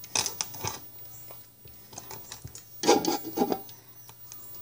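Wire whisk scraping and stirring through thick banana bread batter in a mixing bowl: a few quick rasping strokes in the first second, then a louder cluster of strokes about three seconds in.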